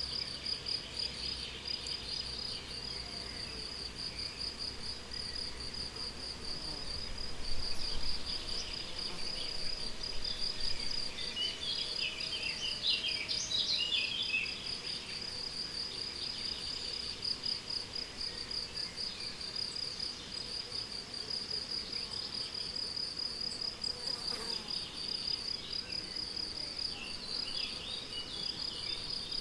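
Crickets singing a steady, fast-pulsing trill, with short snatches of bird song in the middle and near the end.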